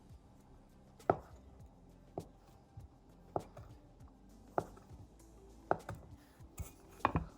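Kitchen knife cutting mozzarella into small cubes, the blade knocking on the cutting board about once a second, six strokes with a quick double at the end.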